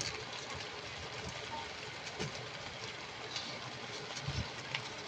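Mixed vegetables sizzling in a frying pan: a steady crackling hiss with scattered small ticks, and a couple of soft knocks near the end.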